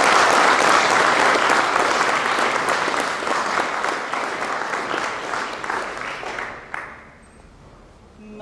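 Audience applauding at the end of a song, the clapping tapering off and dying away about seven seconds in.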